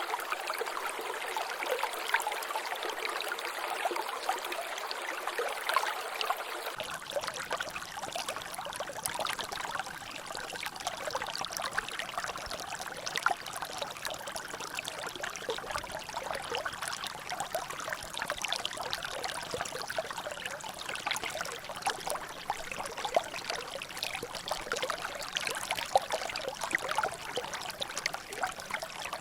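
Water trickling and dripping in a small natural drainage: a steady, dense patter of small drops and splashes. About seven seconds in, the sound becomes fuller and deeper.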